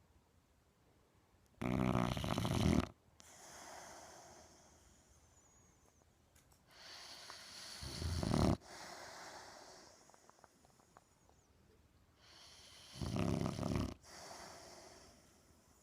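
Boxer dog snoring in its sleep: three loud snores about five to six seconds apart, each followed by a softer breath.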